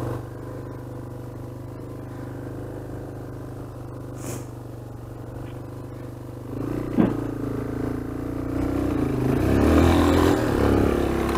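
Dual-sport motorcycle engine idling steadily, then revving up about seven seconds in and pulling under load, the revs rising and falling as it climbs a rocky, rutted trail.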